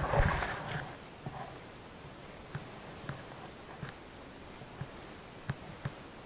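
Footsteps on loose volcanic rock during a steep descent: a brief breathy rush at the start, then scattered light knocks and clicks at irregular intervals.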